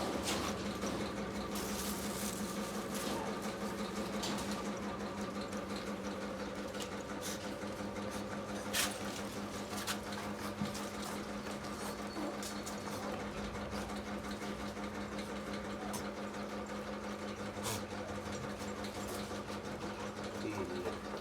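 A steady mechanical hum, like a small motor running, holding one pitch throughout, with a few faint clicks.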